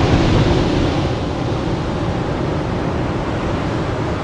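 Ocean surf breaking on a sandy beach: a steady rush of waves. In the first second it overlaps with the fading road noise of a car driving.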